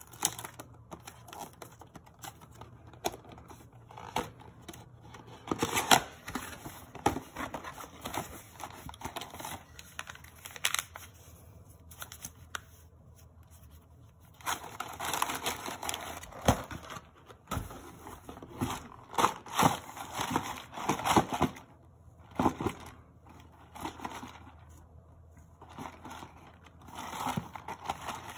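Paperboard carton being torn open and handled, with the foil stick packets inside rustling and crinkling: uneven bursts of tearing, scraping and crinkling packaging with sharp clicks and taps of card.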